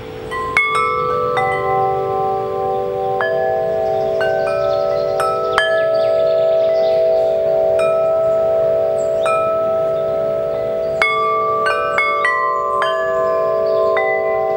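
Six-tube aluminium-alloy wind chime with 44 mm tubes, its striker knocking the tubes at irregular moments so they ring in long, overlapping tones. A quick flurry of strikes comes about eleven seconds in.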